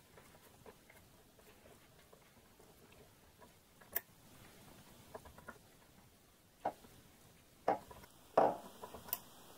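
A few faint, sharp clicks and taps of an Allen key and small metal compressor parts being handled, the loudest about four seconds in and several more near the end.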